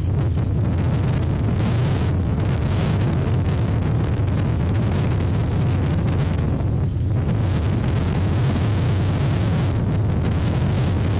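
Strong gusty wind buffeting the microphone: a steady, loud low rumble with fluttering hiss above it.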